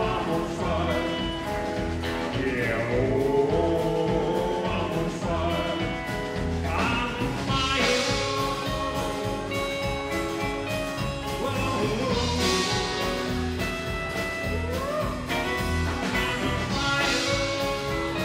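Live rockabilly band playing an instrumental break on electric guitar, acoustic guitar, upright double bass and drum kit, with a steady bass pulse and three cymbal crashes.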